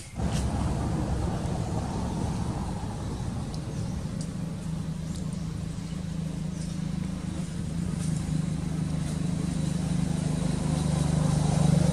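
A motor vehicle engine running steadily, getting louder near the end.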